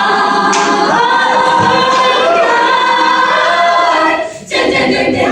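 A cappella vocal group singing a pop song with female voices over held backing chords. The voices drop out briefly about four and a half seconds in and come straight back in.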